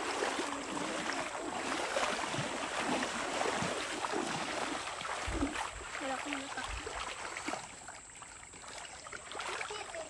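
Shallow river water rushing and splashing around a child's feet as he wades through the stream, with a couple of low thumps a little past the middle.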